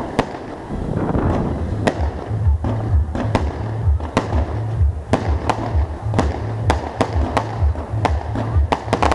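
Fireworks display: a rapid, irregular series of sharp bangs from bursting shells, a bang every half second or so, with some crackling. From about two seconds in, a pulsing deep bass beat of music runs underneath.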